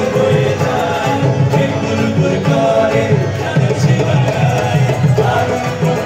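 Live Bengali folk music from a band playing over a hall's PA speakers, with a steady beat.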